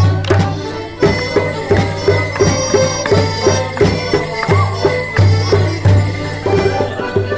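Traditional English folk dance tune played live on accordions with a drum keeping a steady beat, as music for morris dancing.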